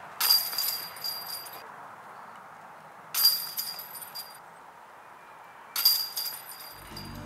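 Three disc golf putts caught in the metal chains of a basket, each a sudden jangle of chain links that rings on for about a second. The putts come roughly three seconds apart.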